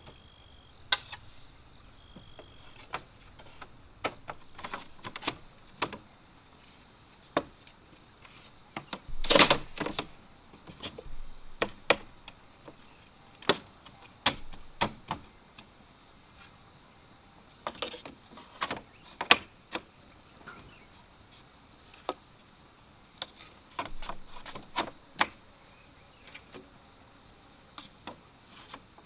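Cut bamboo sections knocking and clacking against one another as they are laid into a bamboo cage wall: scattered knocks throughout, with a louder clatter about ten seconds in.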